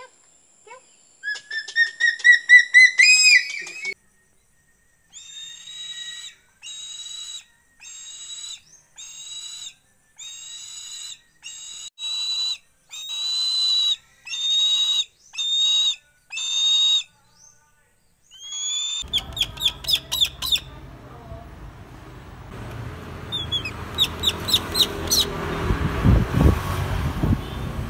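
Shrill whistled calls of raptors: first a quickening series of notes rising in pitch, then about a dozen long whistled notes about once a second. Near the end come rapid short notes over outdoor background noise.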